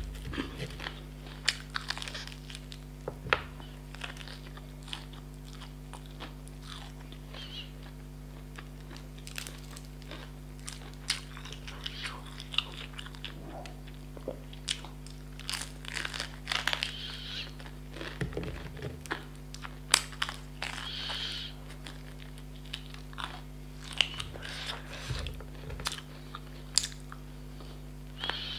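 Close-miked eating of fried chicken: crunching and chewing of the crispy coating, with repeated sharp clicks and wet mouth smacks as the meat is bitten and pulled off the bone. A steady low hum sits underneath.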